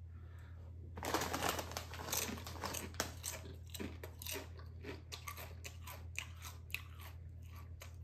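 A Doritos tortilla chip bitten about a second in, then chewed with a run of crisp crunches that grow sparser as it breaks down.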